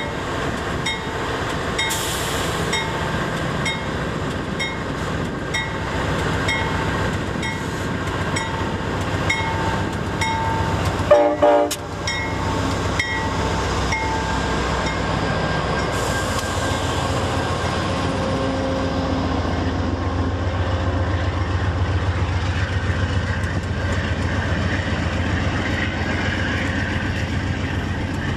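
Amtrak GE P42DC diesel locomotive departing: its bell rings steadily, about one stroke every 0.7 s, and there is a short loud horn blast about eleven seconds in. From about halfway through, the low rumble of the diesel engine and the wheels on the rails take over as the locomotive and passenger cars roll past.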